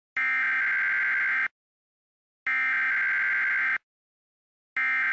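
An electronic buzzer-like tone sounding three times, each about a second and a quarter long and a second apart, all at the same steady pitch.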